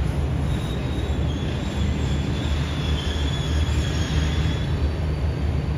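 Passenger train coaches rolling slowly along a loop line: a steady low rumble, with a faint high wheel squeal through the middle.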